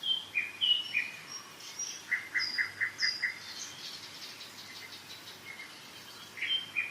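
Several songbirds singing and chirping in spring woodland, with one bird giving a quick run of about six repeated notes about two seconds in. A faint steady hiss of a mountain river lies underneath.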